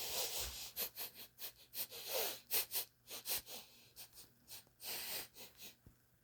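A lion sniffing: a rapid run of short, noisy sniffs with a couple of longer breaths in between.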